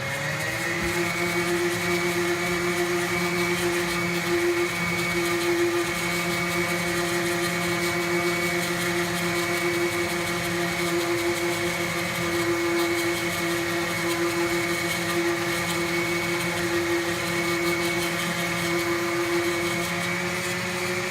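Random orbital sander with a 60-grit disc running on wood, together with the vacuum hooked to it for dust extraction: a loud, steady motor whine with several pitches held level, starting to wind down at the very end.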